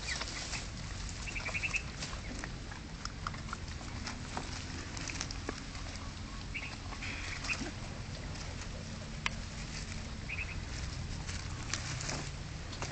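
Puppies squeaking in short, quick high clusters now and then, over scuffling and small clicks of paws in dry leaves and twigs.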